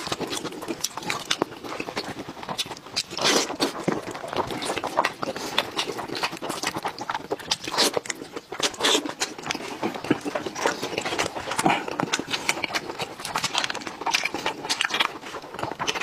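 Close-miked wet eating sounds: chewing, lip smacking and slurping of saucy braised sheep's head meat, a dense run of sticky mouth clicks and smacks.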